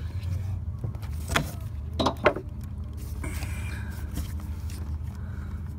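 A few sharp clicks and knocks, the loudest about two seconds in, from hands pulling at and handling a car's oxygen sensor wiring harness in the engine bay, over a steady low hum.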